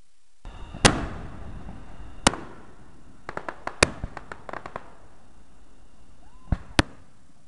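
Fireworks going off: a sharp bang about a second in, another about a second later, a quick run of smaller cracks in the middle, and two more bangs close together near the end.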